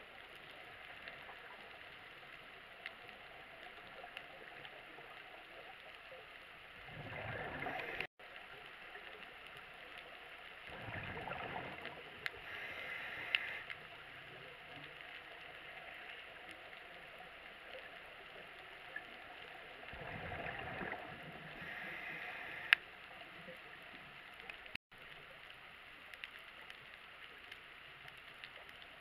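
Underwater ambience on a scuba dive: a faint steady hiss with scattered clicks, broken three times by a second or two of rushing, gurgling bubbles from a diver's regulator exhaling.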